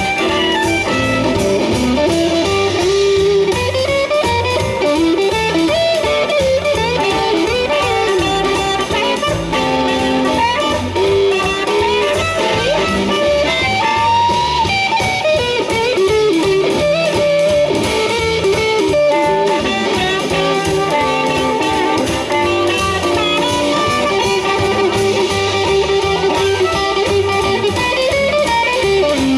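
Live blues band playing an instrumental passage: amplified harmonica cupped to a microphone and electric guitar over upright bass and drums.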